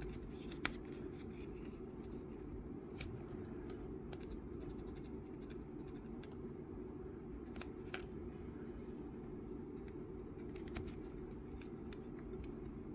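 Faint scratching and small scattered clicks of a fine-grit sanding sponge rubbed across a tiny photo-etched metal knockoff, wiping off excess marker ink, over a steady low background hum.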